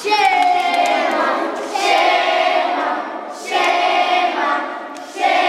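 A group of children and young women chanting loudly together in unison: a drawn-out call repeated about every second and a half to two seconds, the first one falling in pitch, as a circle-game chant.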